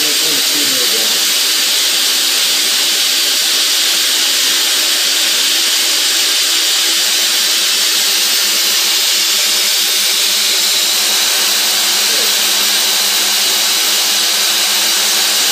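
Fadal VMC-15XT CNC milling machine running its Lyndex 5:1 speed-increaser spindle at high speed: a steady, loud, high-pitched hiss and whine with no change in level.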